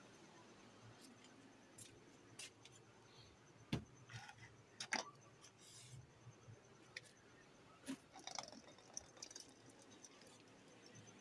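Near silence broken by scattered light clicks and taps at irregular intervals, the sharpest two close together a little before the middle.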